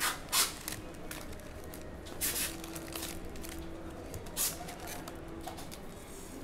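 Trading card packs' plastic wrappers being torn open and crinkled: a run of short rustling tears, four of them louder than the rest.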